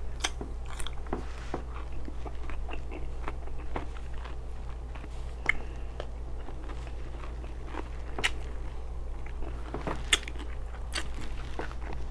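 A person chewing and biting food, with scattered crunches and wet mouth clicks, over a steady low hum.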